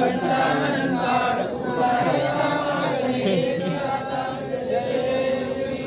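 A large crowd of devotees chanting a prayer together to Ganesh before the idols are immersed, many voices in unison on a steady sung line.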